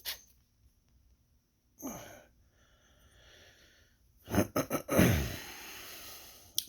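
A person's breath sounds in a quiet small room: a short breath about two seconds in, then a few quick clicks and a long sigh-like exhale near the end.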